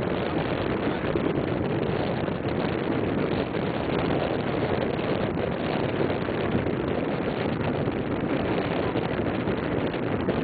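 Wind noise on the microphone over the distant, steady drone of a group of sports car engines.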